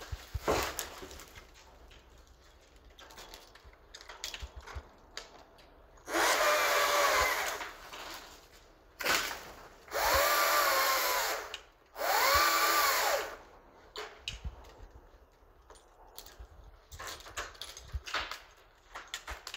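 Small arborist's chainsaw cutting through branches in three bursts of a second or two each, about six, nine and twelve seconds in, its pitch rising as it speeds up and falling as it is let off. Light knocks and rustles between the cuts.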